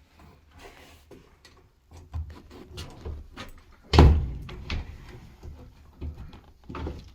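A heavy custom exterior door being swung shut against its newly fitted latch and strike plate to test the fit: one loud thud about four seconds in, with smaller knocks and rattles of the door hardware around it.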